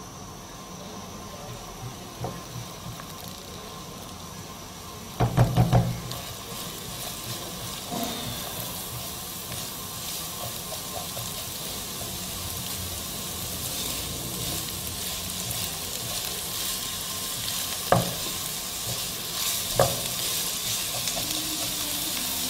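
Chopped onion sizzling in a little oil in a nonstick frying pan, the sizzle slowly growing louder as the onion softens. A silicone spatula stirring it knocks against the pan in a quick run of about four strokes some five seconds in, and twice more near the end.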